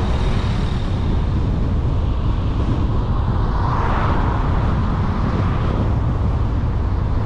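Car driving along a road: a steady low rumble of tyre and wind noise, swelling briefly about halfway through.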